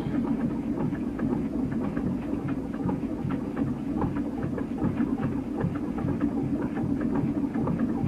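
A motor on a sponge-diving boat running steadily with a regular low chugging beat, with small clicks and knocks over it.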